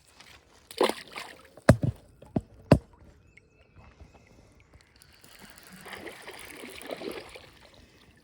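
Kayak paddling: a splash of a paddle stroke about a second in, then four sharp knocks against the kayak, and a longer sloshing swish of water in the second half.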